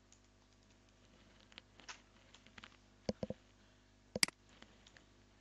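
Faint, scattered clicks of a computer keyboard and mouse, with a quick cluster of three dull taps about three seconds in and one sharp click just after four seconds.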